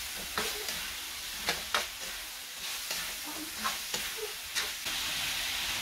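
Pork ribs sizzling in oil in a stainless steel wok while a metal slotted turner stirs them. The turner scrapes and clinks against the pan about once a second.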